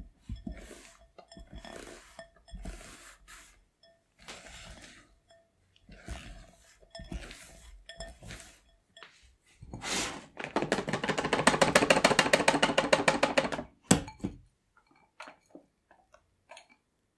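A silicone spatula folds powder into chocolate batter in a glass bowl, with soft, irregular scraping strokes. About ten seconds in, a wire whisk beats meringue in a glass bowl for about three seconds; this fast, even clatter is the loudest part. It ends with a sharp tap, followed by a few light clicks.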